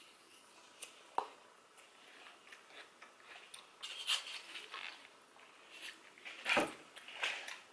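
A person biting and chewing a crunchy apple: scattered crisp crunches and wet chewing, the loudest crunch a little after six seconds in.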